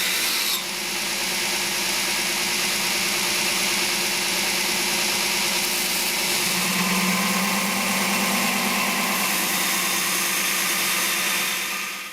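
Electric grinder grinding a steel knife blank to shape: a steady, loud whir with the hiss of metal on the abrasive. It dips briefly just under a second in and stops near the end.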